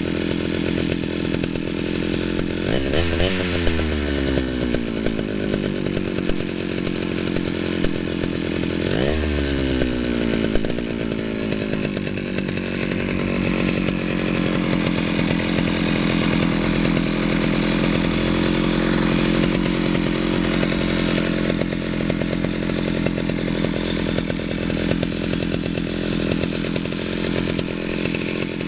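Stihl 051AV chainsaw's two-stroke engine running steadily with its bar and chain removed. It is blipped to a higher speed twice, about three seconds in and again about nine seconds in, and each time it slows back down over a couple of seconds.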